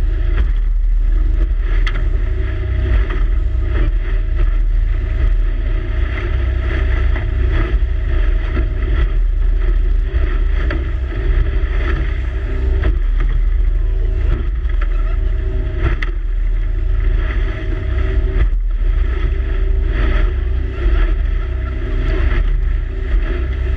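A boat's motor running steadily under way, with heavy wind rumble on the microphone.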